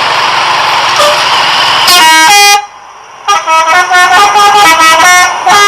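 Telolet multi-tone musical bus horn on a Pandawa 87 bus playing a tune of stepping notes. It starts about two seconds in after a loud steady rushing noise, breaks off briefly, then goes on as a quick run of changing notes.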